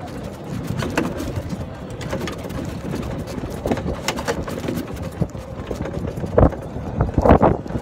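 Golf cart rattling and jolting over a rough sandy trail: irregular knocks and clatter from the body and frame over a low rumble, with a couple of heavier thumps near the end.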